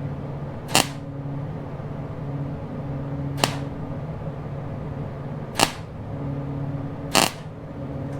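Welder striking four short tack-weld bursts, each a brief crackle, over the steady hum of the machine. They are patching a spot where the plasma torch cut through a steel sign.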